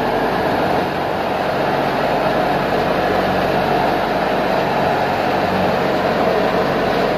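Mughal Naeem wheat thresher running at working speed: a loud, steady mechanical noise.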